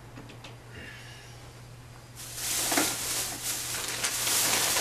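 A steady hiss starts about two seconds in and continues, over a constant low electrical hum.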